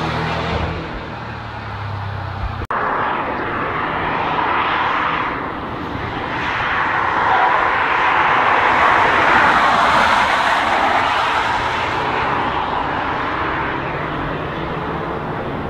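A car's engine fading away after it has passed, broken off by an abrupt cut about two and a half seconds in. Then a Volkswagen Golf Cabriolet drives through a track corner, its engine and tyre noise swelling to a peak near the middle and slowly fading as it moves away.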